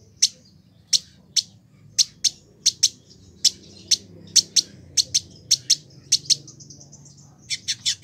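Male village indigobird (Vidua chalybeata) calling: a string of short, sharp, high chips, two or three a second at uneven spacing, with a quick run of three near the end.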